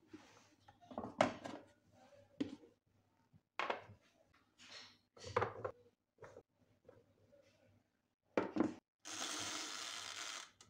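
Plastic steamer basket and lid handled on an electric food steamer, with green beans dropped into the basket: a series of short plastic knocks and clatters. Near the end comes a steady hiss lasting about a second and a half.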